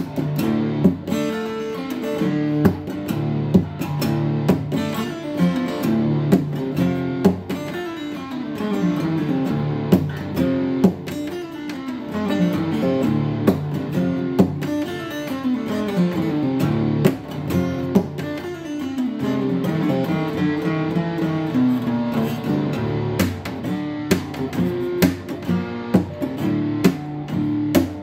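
Acoustic guitar played solo, picking runs of notes that step down and back up in pitch.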